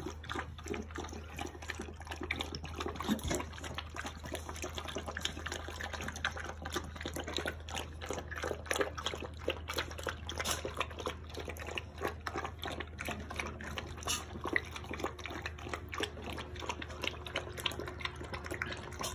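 Several Siberian Husky puppies lapping water from a metal bowl together: a fast, irregular run of wet laps and small splashes, over a steady low hum.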